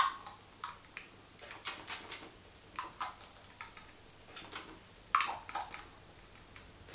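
A dozen or so small, irregular clicks and taps from a plastic pipette and a small hop extract bottle being handled as the pipette is filled and squeezed out over a plastic fermenter bucket.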